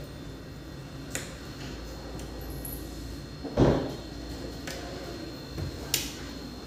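A single dull thump about halfway through, with a faint sharp click before it and another near the end, over a steady low background hum.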